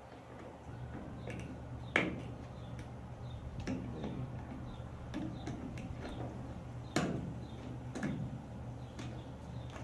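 Parts of a truck light assembly being handled and fitted: scattered sharp clicks and knocks, the loudest about two seconds in and again about seven seconds in, over a steady low hum.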